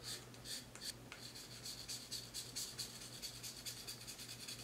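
Faint scratching of the scratch-off coating on a paper redemption card, in quick repeated strokes, several a second.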